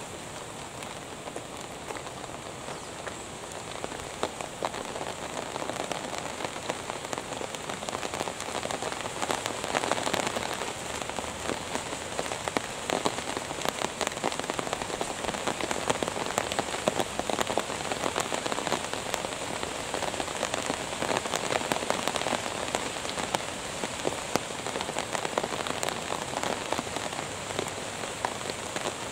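Rain falling, the separate hits of many drops heard over a steady hiss. It grows heavier over the first several seconds, then keeps falling steadily.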